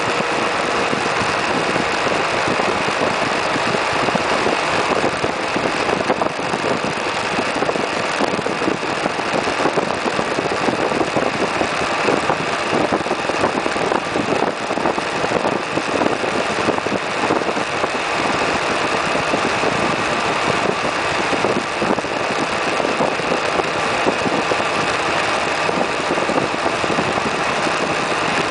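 Suzuki Burgman 650 maxi-scooter's parallel-twin engine running at a steady cruise, mixed with a constant rush of wind and road noise over the microphone.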